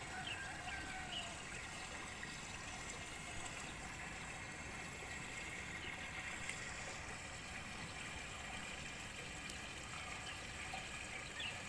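Steady rushing of a small stream of running water, heard from above.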